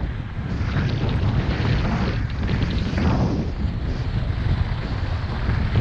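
Wind rumbling on the microphone of a skier moving fast downhill, with the hiss and scrape of skis carving on groomed snow that swells with each turn, about once a second.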